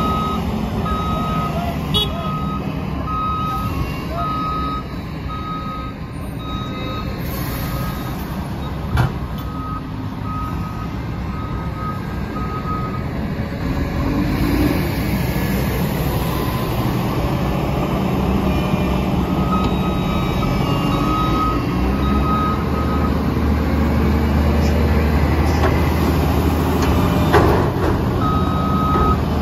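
Diesel engines of a Mack LE garbage truck and a wheel loader running, with a back-up alarm beeping about once a second; the beeping stops for several seconds in the middle, then comes back twice. About two-thirds of the way in the low engine drone grows louder, and a few sharp knocks sound along the way.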